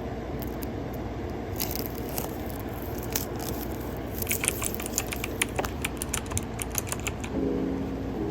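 AirPods packaging being handled and opened: quick small clicks, tearing and crinkling of paper and plastic in an irregular run.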